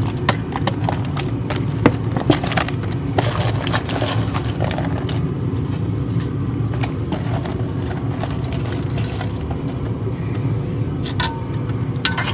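Light clicks, taps and soft plops as diced bacon and beef are tipped from a plastic tub into a cast-iron Dutch oven of broth, over a steady low hum. Near the end a metal spoon clinks sharply against the cast iron as the stew is stirred.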